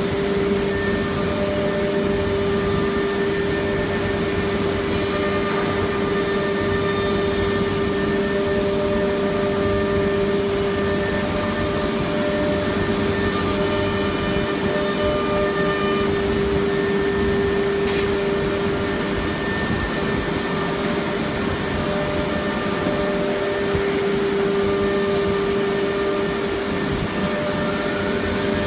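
QUICK CNC UA481 four-axis CNC router running: a steady whine over a noisy hum, with one brief click about two-thirds of the way through.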